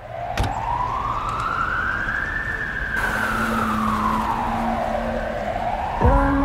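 Opening of a K-pop dance track: a siren-like wail slowly rises and falls over a hiss. A low held synth note comes in about halfway, and the beat enters near the end.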